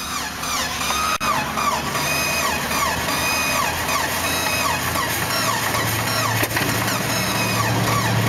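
Starter motor cranking the Jeep Grand Cherokee's blown engine over and over, an uneven churning with a repeating chirp about twice a second. The engine tries to fire but does not catch.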